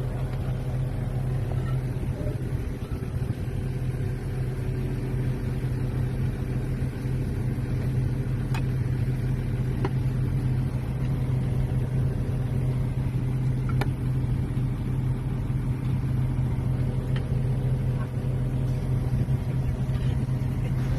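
Hyundai backhoe's diesel engine running steadily with a strong low hum, with a few faint metallic clicks in between.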